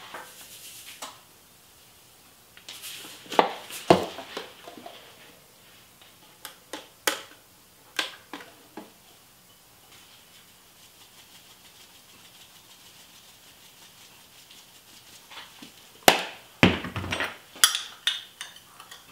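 Kitchen items handled on a countertop: spice jars and a small glass bowl picked up and set down, giving scattered knocks and clinks at irregular intervals, the loudest cluster near the end.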